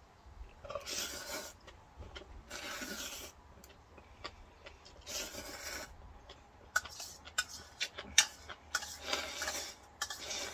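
A person eating spicy ramen close to the microphone: four noisy slurps of about a second each, with a run of sharp clicks and small mouth sounds between the last two.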